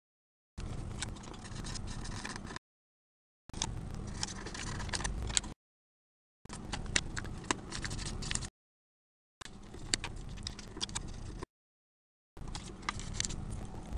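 Thin aluminium foil being handled and crumpled by hand, crinkling and crackling in sharp little clicks. The sound comes in stretches of about two seconds, each cut off by a second of dead silence.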